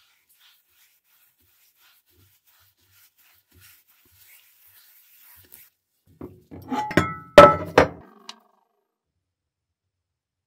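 A cast iron pan being handled on a hard countertop: a quick cluster of knocks and clinks with a brief metallic ring, loudest a little past seven seconds in.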